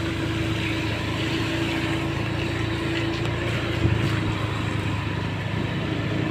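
Small motorcycle engine running at a steady cruise, with road and wind noise. There is one brief bump about four seconds in.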